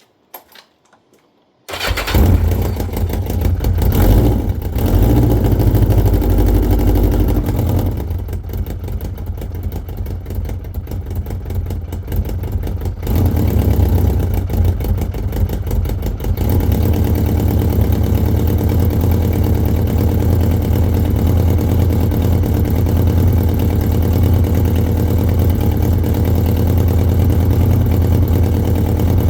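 Yamaha XJ900S Diversion's inline-four engine running, warming up its freshly refitted exhaust headers. It comes in suddenly a couple of seconds in, shifts in level a few times, then settles into a steady idle from about halfway on.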